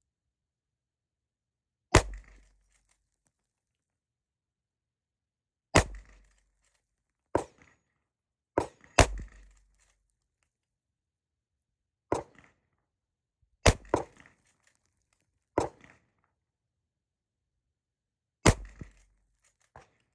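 Rossi R92 lever-action rifle in .45 Colt firing single shots a few seconds apart, each a sharp crack with a short boom after it, with shorter sharp clacks in between from the lever being worked.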